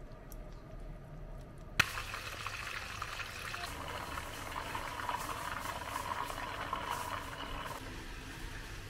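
Hot oil sizzling and crackling as karaage chicken pieces deep-fry in a pot, a dense crackle of many tiny pops. It starts abruptly with a sharp click about two seconds in, after a faint hiss.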